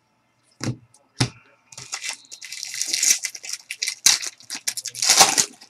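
A trading card pack's wrapper being torn open and crinkled, after two short knocks about a second in; the crinkling runs on and is loudest near the end.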